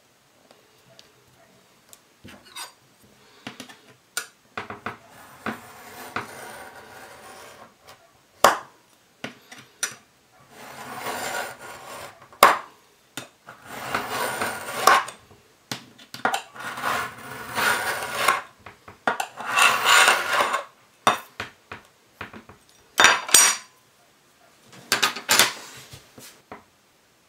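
Knife blade drawn repeatedly along a steel ruler, cutting through veg-tanned leather about 2 mm thick: a run of scraping strokes of a second or two each, with a few sharp metallic clicks between them.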